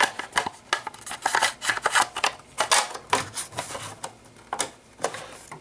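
Irregular run of small plastic clicks and rattles as an RC transmitter and its packaging are handled by hand.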